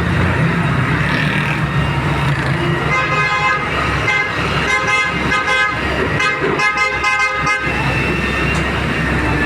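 A vehicle horn honking in a run of repeated blasts, some short and one longer, over the low rumble of a running diesel engine.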